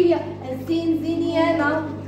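A woman singing a short tune in held, sliding notes, with a steady low hum underneath.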